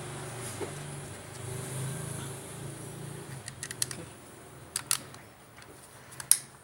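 Hard plastic clicks and snaps from a spring airsoft pistol being handled as a part is fitted onto it: a few light clicks about halfway through, two sharper ones a little later, and the loudest click near the end, over a steady low hum.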